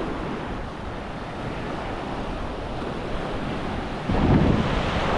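Ocean surf washing up on a sandy beach, with wind rumbling on the microphone; the noise jumps louder about four seconds in.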